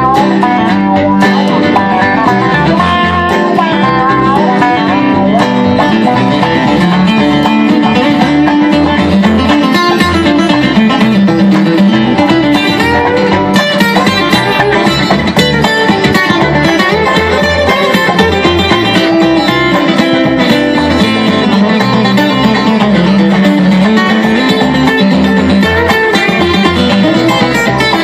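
Live bluegrass band playing: acoustic guitar, upright bass, fiddle, dobro and banjo together in a steady, unbroken stretch of music.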